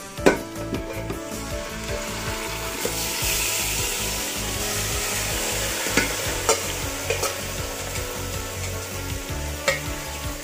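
Marinated chicken sizzling as it is scraped into hot oil in a steel pot, the sizzle swelling about three seconds in. A steel spoon clinks against the bowl and pot several times.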